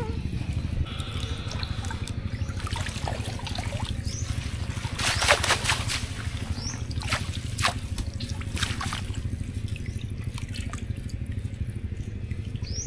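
Water trickling and splashing as a swamp eel trap is handled, with a few louder splashes about five to six seconds in, over a steady low hum.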